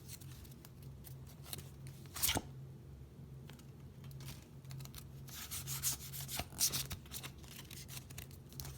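A foil trading-card booster pack being torn open and the cards inside handled, with a sharp crackle of tearing about two seconds in and a spell of rustling and crinkling from about five to seven seconds in.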